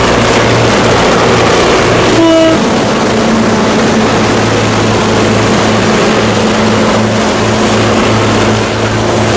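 Triple-headed CC 202 diesel locomotives hauling a loaded coal train, their engines running with a steady low drone. A short horn toot sounds about two seconds in.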